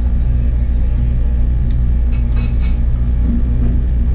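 A steady low machine hum, with a few light clinks of a spoon against a bowl, once under two seconds in and a short cluster about two and a half seconds in.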